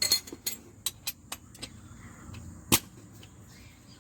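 Scattered sharp metallic clicks and clinks from metal hand tools being handled, at uneven intervals, the loudest about three-quarters of the way in.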